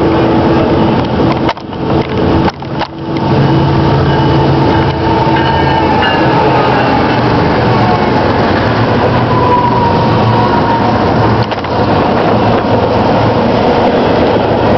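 Diesel-electric locomotives at the head of a BNSF freight train pass close by, their engines running loud and steady. Near the end, autorack freight cars roll past. The sound dips briefly twice about two seconds in.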